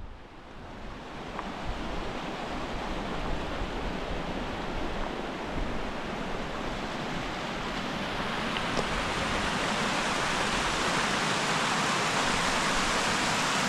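Colorado River headwaters, a shallow mountain creek, rushing and splashing over rocks in small cascades, growing steadily louder as it gets nearer.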